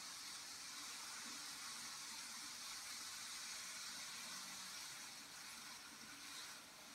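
Two Z-scale model freight trains running on their track: a faint, steady high whir and hiss from the tiny motors and wheels, easing slightly near the end.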